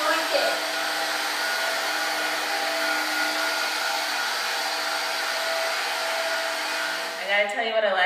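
Hoover Air Cordless battery upright vacuum running with a steady whooshing motor noise as it is pushed over a hardwood floor. It cuts off near the end, and a voice begins.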